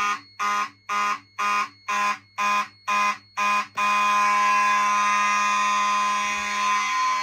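Fire alarm horns sounding in a system test with a buzzy, somewhat raspy tone. For the first few seconds they pulse on and off about twice a second, then they sound steadily.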